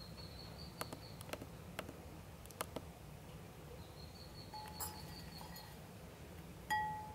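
Ducklings settled in a wicker basket, giving a few faint, sparse ticks and soft peeps over a low steady room hum. A faint thin high whine comes in about halfway through. Near the end there is one brief, louder pitched note that fades quickly.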